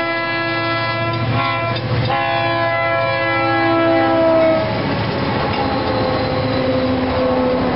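Diesel freight locomotives passing close by with the horn sounding a chord of several notes, with a short break near two seconds. The horn is loudest about four and a half seconds in as the lead units pass, then carries on lower in pitch and slowly falling as they move away. The rumble of engines and wheels on the rails runs beneath it.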